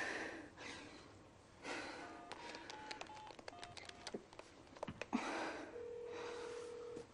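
Cellphone keypad beeps as a number is dialled: a quick string of short tones at differing pitches with small button clicks. About two seconds later a steady ringing tone sounds from the earpiece. Shaky, tearful breaths come in between.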